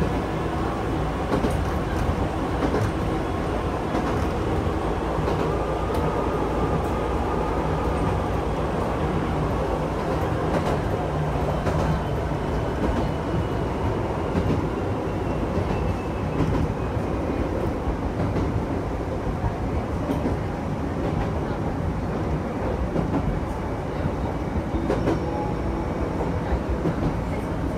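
Electric train running along the line, heard from inside the front cab: a steady rumble of wheels on the rails, with occasional short clicks over the rail joints.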